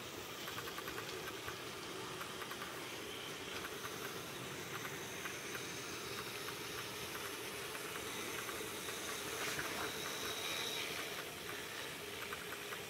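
Model diesel locomotive and passenger cars running around a track helix: a steady whir with recurring bursts of light clicking from the wheels on the rails.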